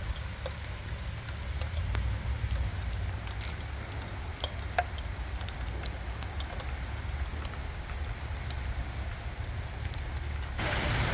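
Heavy rain with scattered drops ticking over a steady low rumble. Near the end the rain's hiss suddenly grows much louder as the downpour comes in full.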